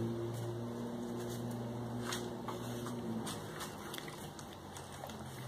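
A dog's claws clicking now and then on a tiled floor as it walks about, over a low steady hum.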